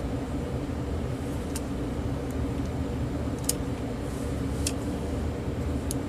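A few short, sharp clicks of small plastic handset parts being handled, over a steady low background hum.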